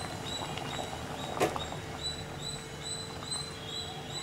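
Toor dal and spinach stew (paruppu keerai kuzhambu) boiling in a steel pot, bubbling with small scattered pops. Throughout there is also a short high chirp repeating about three times a second.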